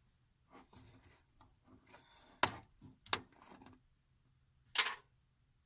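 Handling noise from a funnel and quart bottles of motor oil being picked up and set out: soft rubbing, then a few sharp clicks and knocks about two and a half to three seconds in, and a short scraping rustle near the end.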